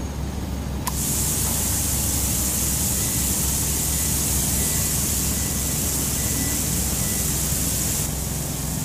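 Pressure washer jet hissing as the lance blasts water down onto brick paving. The hiss starts about a second in and drops back near the end, over a steady low hum.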